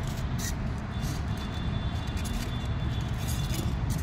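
Cardboard and polystyrene packing being handled, with a few brief rustles and scrapes in the first second, over a steady low rumble.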